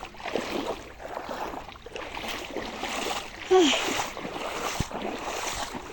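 Floodwater sloshing and splashing with many small irregular splashes, and one louder short sound with a falling pitch about three and a half seconds in.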